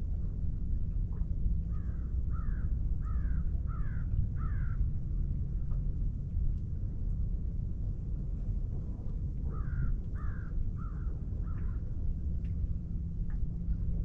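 A crow cawing in two runs, five caws about two seconds in and four more about nine seconds in, over a steady low rumble.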